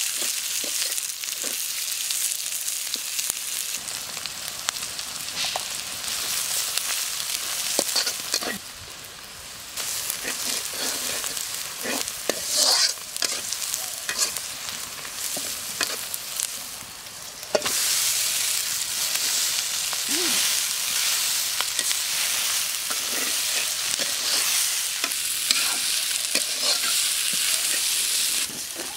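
Onions and green chillies sizzling in hot oil in a black wok, with a slotted metal spatula scraping and clinking against the pan as they are stirred. The sizzle drops off briefly twice and is louder again from just past the middle on.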